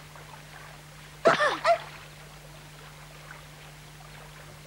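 A brief vocal exclamation of two quick syllables with bending pitch, about a second in, over a faint steady hiss of rain.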